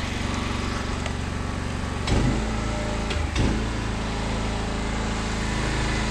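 A small engine running steadily. About two seconds in and again a second later its note shifts, and a deeper rumble then carries on underneath.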